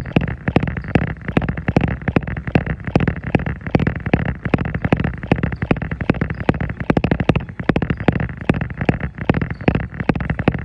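Jogging footfalls on a treadmill belt, a quick, even rhythm of impacts.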